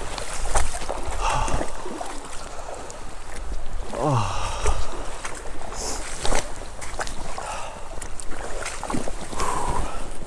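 Shallow creek water running and sloshing around a wader, with scattered light knocks. About four seconds in there is one short falling squeal.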